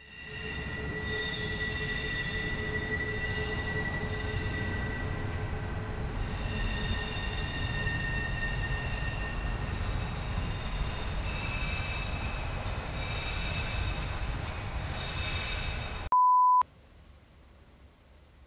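Freight train rolling past: a steady rumble with high, held wheel squeal tones. About sixteen seconds in it cuts off, a short loud steady beep sounds, then only faint room tone.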